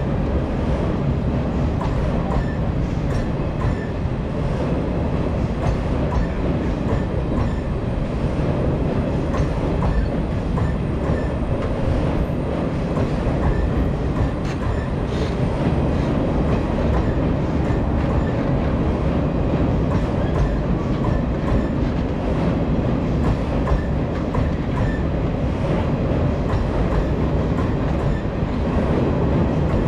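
Passenger train coaches rolling past at speed close by, a steady loud rumble with the wheels clacking over the rail joints.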